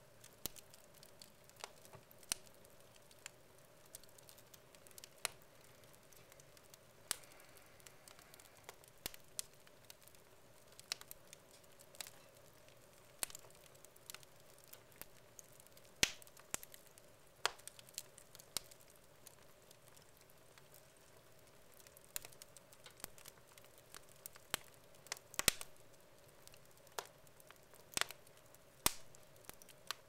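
Wood logs burning in a fireplace, crackling with irregular sharp pops and snaps, a few much louder than the rest.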